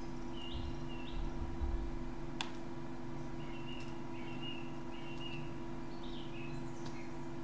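Quiet room tone from a desk microphone: a steady electrical hum with faint short high chirps scattered throughout, a low rumble about a second in, and a single sharp click, a computer key or mouse click, about two and a half seconds in.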